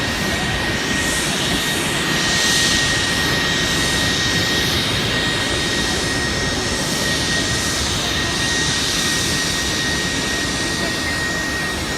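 Steady loud engine roar with a constant high whine, over a rushing hiss that swells and fades every second or two.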